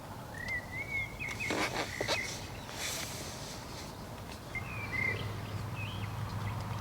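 A small bird calling in short chirps that slide up and down in pitch, in two bouts, with a few brief rustling noises between them.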